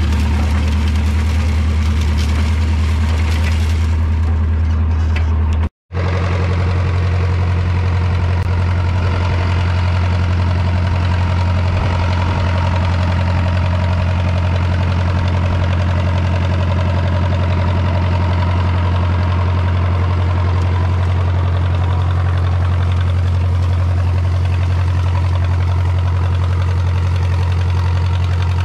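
John Deere New Generation tractor engine running steadily while pulling a corn planter through the field: a constant low engine note that drops out for a split second about six seconds in.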